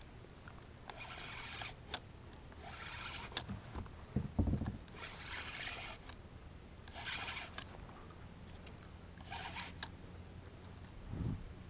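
Spinning reel cranked in short bursts about every two seconds, winding line in against a hooked gummy shark on a bent rod. Two low thumps, the louder about four seconds in and another near the end.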